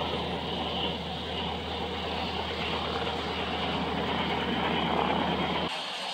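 North American T-6 Texan's nine-cylinder Pratt & Whitney R-1340 radial engine running at low power as the plane taxis: a steady low drone. It cuts off abruptly near the end, leaving a fainter hiss.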